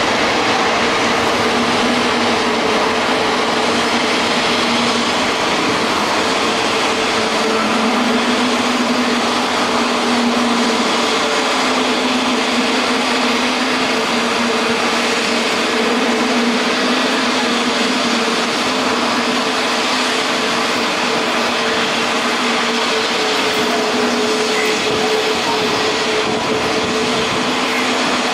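Jet airliner engines running at low taxi power: a steady rushing noise with two steady humming tones under it.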